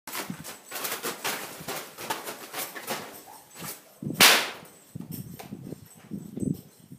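Plastic tarp crackling and crinkling under a horse's hooves as it walks across it, with one loud rustle just after four seconds. Softer low thuds of hooves in sand follow.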